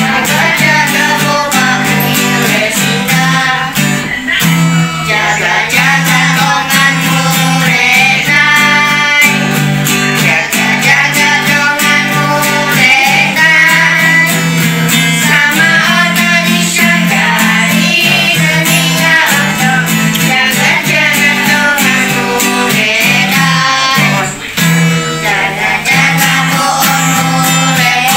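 Children singing a song with strummed acoustic guitar accompaniment.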